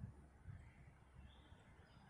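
Faint outdoor ambience: a low rumble with a soft, short bird call about a second and a half in.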